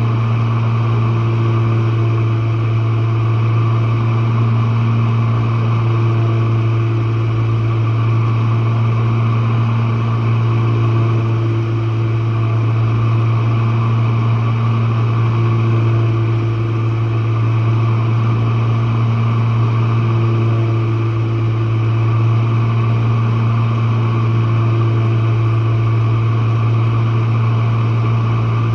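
Jenn-Air dishwasher running a wash cycle, heard from the bottom of the machine: its pump motor gives a loud, steady low hum, with a fainter higher tone that shifts back and forth every few seconds.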